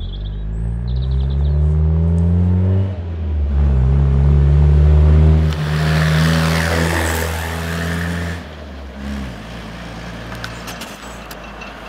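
Land Rover Series 1 engine pulling up the road towards the listener, its note rising, dropping back briefly about three seconds in as it changes gear, then rising again. It passes close by about six seconds in with a rush of tyre and wind noise and a falling engine note, then fades away. The freshly rebuilt gearbox is running nicely.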